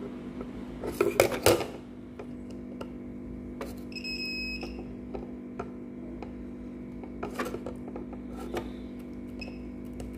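Clicks and knocks as a circuit board is turned over and set down, then a digital multimeter's continuity buzzer gives one short beep about four seconds in, the sign that its probes are touching a low-resistance path. Light probe-tip clicks and a steady low hum run underneath.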